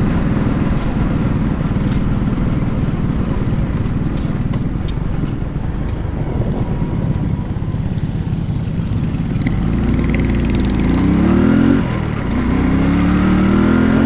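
Motorcycle on the move: a steady low rumble of engine and riding noise, then about ten seconds in the engine revs up, drops at a gear change, and revs up again as the bike accelerates.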